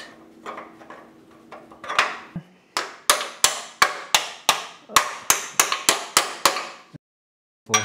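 Hammer striking a steel mounting plate to seat it on a Jeep frame: a run of about a dozen sharp metallic blows, roughly three a second, each ringing briefly. The blows cut off abruptly near the end.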